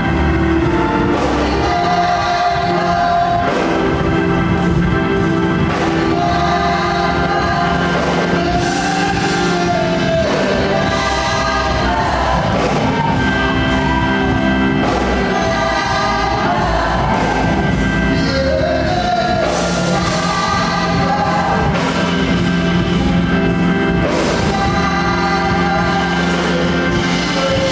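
Gospel choir singing over instrumental accompaniment, with sustained, sliding vocal lines above a steady bass.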